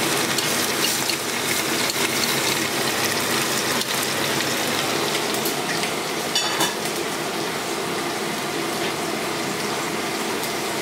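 Beef shanks searing in butter and oil in a stainless steel pot: a steady sizzle and crackle. A brief clink rings out about six and a half seconds in.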